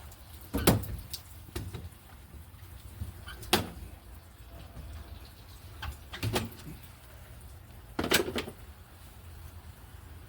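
Squeegee being worked over wet window glass: four short, sharp knocks a few seconds apart over a steady low hum.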